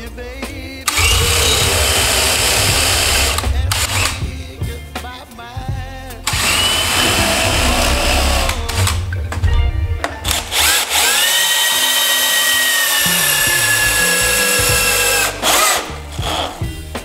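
Cordless drill boring into a timber beam in three runs of a few seconds each, with a steady motor whine. In the last and longest run the whine dips slightly in pitch.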